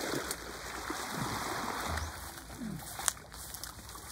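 Water splashing and trickling, heaviest in the first two seconds and then settling, with a few faint knocks.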